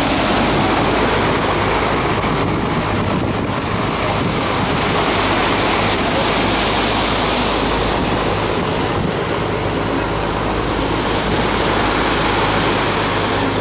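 Stormy sea surf surging and breaking around the steel pilings of a pier: a steady, loud rushing wash of water, with a steady low hum underneath.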